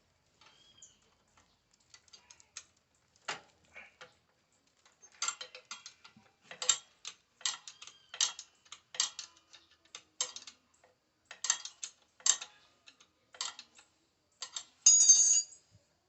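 Ratchet wrench clicking in short strokes, a little under one stroke a second, as bolts on a motorcycle's footpeg bracket are loosened; a louder metallic clink near the end.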